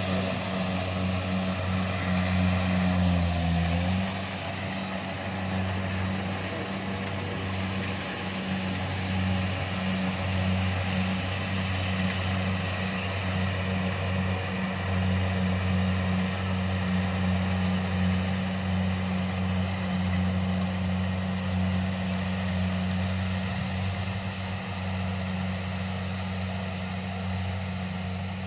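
Kubota DC-70 combine harvester's diesel engine and threshing machinery running steadily under load with a constant low hum, dipping slightly in pitch about three seconds in.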